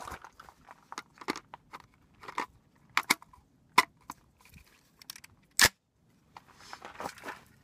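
12-gauge shotgun shells clicking one at a time into the box magazine of a Catamount Fury II shotgun, then a louder sharp click about three quarters of the way through as the loaded magazine is locked into the gun.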